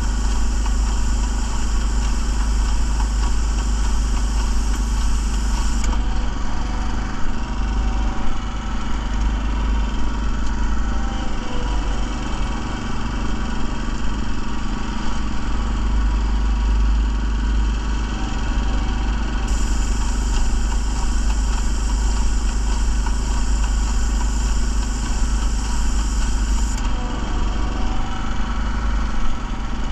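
Small gasoline engine of a walk-behind airless line striper running steadily. A high hiss of the spray gun laying paint joins it for the first six seconds or so, and again for about seven seconds past the middle.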